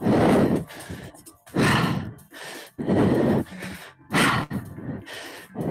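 A woman breathing hard with the effort of repeated one-arm dumbbell lifts: forceful, loud exhalations in an even rhythm, about one every second and a half, five in all.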